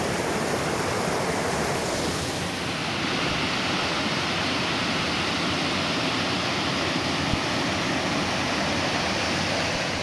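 Waterfall in fast, heavy flow: a steady, even rush of falling water, its highest hiss easing slightly about three seconds in.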